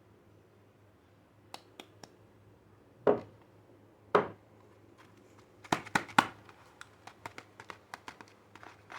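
A soap wrapper being handled and torn open by hand. A few light clicks come first, then two louder rustles about three and four seconds in, a burst of crinkling near six seconds, and a quick run of small crackles after that.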